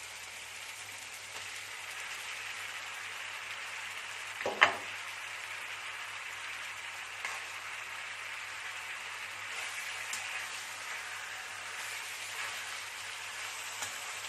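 Steady sizzling of food frying in a pan, with one sharp knock about four and a half seconds in and a few faint clicks after it.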